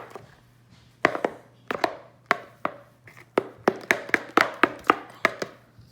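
A spoon clicking and knocking against a bowl as a thick glue-and-shaving-cream slime mixture is stirred, in irregular strokes that come faster in the second half.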